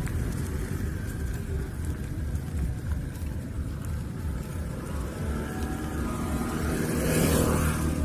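Motor vehicle running with steady low engine and road rumble, heard from inside while moving, with a faint rising whine in the middle and a swell of noise near the end.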